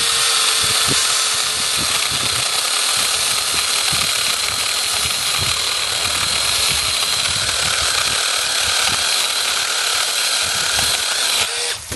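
Fuhaus 6-inch cordless mini chainsaw with a brushless motor running at full speed with a steady whine, its chain cutting through a tree limb about 2.5 to 3 inches thick. It shuts off abruptly near the end.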